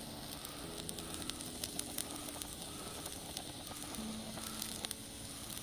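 Firework fountain on a New Rambo firecracker hissing and crackling as it sprays a column of sparks. This is the fountain stage that burns before the 40-gram salute goes off.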